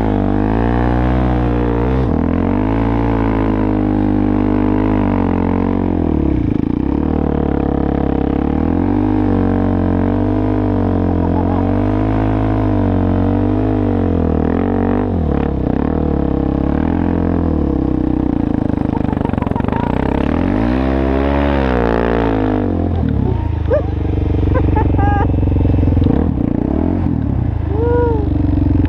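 Suzuki LTZ400 quad's single-cylinder four-stroke engine revving up and down over and over, the pitch rising and falling about once a second for a stretch, then one long climb and drop. A few short high squeaks come near the end.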